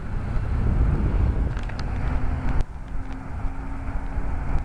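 Low, steady rumble of road traffic, with a few sharp clicks about two seconds in and a faint steady hum in the second half.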